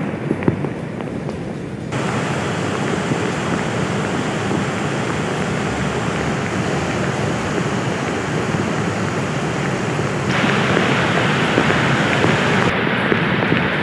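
Muddy floodwater rushing in a loud, steady churn of water noise that changes sharply twice, about two and ten seconds in.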